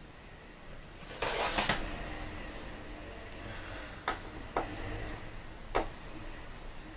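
Pleated window shade pushed up, giving a short loud rustle of folding fabric, then three sharp clicks as the shade's string and its fittings are handled.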